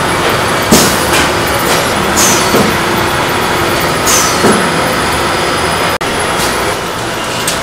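Lotus-leaf pancake-making machine running: a loud, steady mechanical din with a sharp burst of noise repeating about every one and a half to two seconds.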